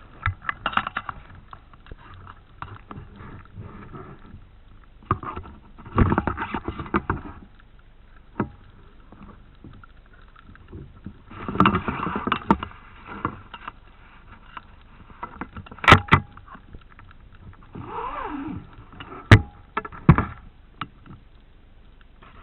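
Water noise in irregular surges, with scattered knocks and two sharp, loud clicks about three seconds apart in the second half.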